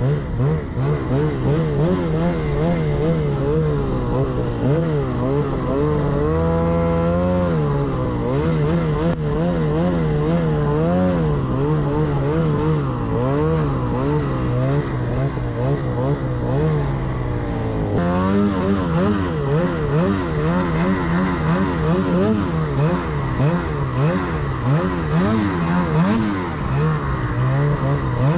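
Snowmobile engine working through deep powder snow, its revs rising and falling about once a second under constant throttle changes. It climbs higher briefly about six seconds in and jumps up abruptly about eighteen seconds in.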